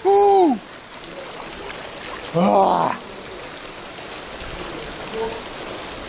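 Heavy rain pattering on the surface of an outdoor swimming pool, a steady hiss heard at water level. A man's long yelps at the cold rain cut in at the start, and once more, briefly, about two and a half seconds in.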